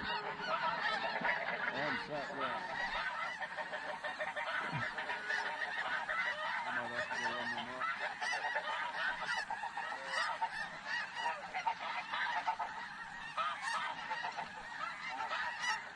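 A large flock of snow geese calling, many high, overlapping honks and barks blending into a steady chorus.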